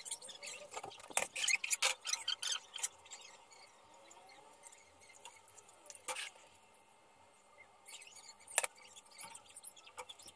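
Thin roti being torn into pieces by hand, a crisp crackling and rustling in the first three seconds. It is followed by a few single sharp clinks of a metal ladle against the pan and plate as broth is ladled out.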